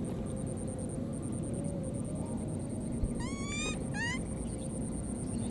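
Baby monkey giving two short rising squeals with a clear pitch, the first about three seconds in and a shorter one about a second later, over a steady low rumble.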